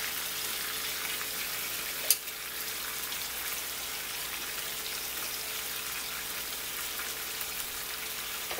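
Salmon frying in a pan of red wine and Worcestershire sauce, with a steady sizzle. There is one sharp click about two seconds in.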